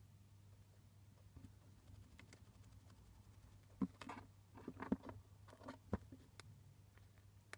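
Chinchilla picking up and crunching a nut: a cluster of small crunches and clicks about four to six seconds in, and one more click near the end, over a faint steady low hum.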